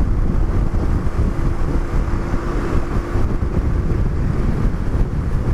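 Wind buffeting the microphone over the low rumble of a motorcycle being ridden, with a faint steady hum that stops about four seconds in.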